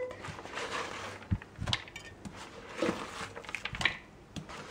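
Food preparation at a cutting board: chopped onion and vegetable pieces being handled, with rustling and scraping and a few irregular light knocks.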